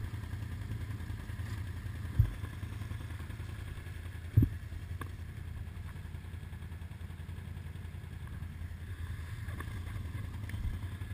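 ATV engines running low and steady, with two sharp knocks about two and four seconds in.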